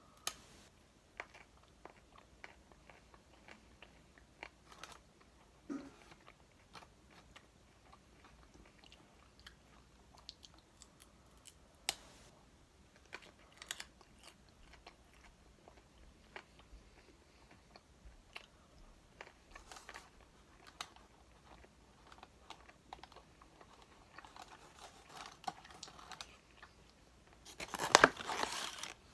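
Close-up chewing and crunching of crispy fried chicken wings: scattered crisp crunches through the chewing, with a louder burst of crunching about a second before the end.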